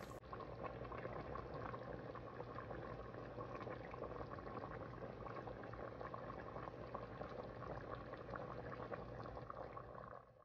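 Pot of potato soup bubbling at a steady simmer on a gas stove, a continuous soft bubbling with fine popping.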